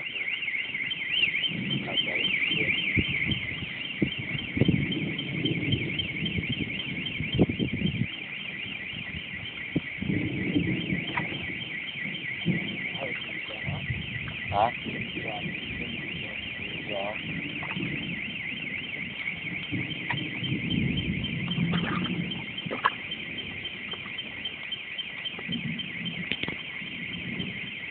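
Steady high-pitched insect chorus, pulsing rapidly, with occasional low knocks and rustles beneath it.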